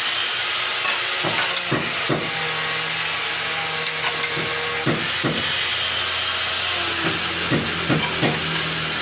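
Woodworking power machinery running steadily with a loud hiss and a low hum, broken by about seven sharp knocks at uneven intervals.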